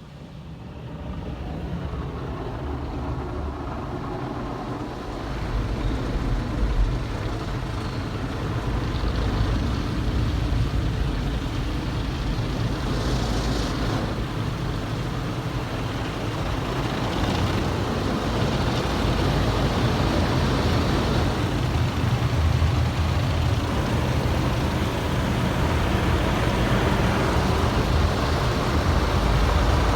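Car wash running: a steady rush of water spray and machinery over a deep rumble, building up from quiet in the first two seconds and then holding loud.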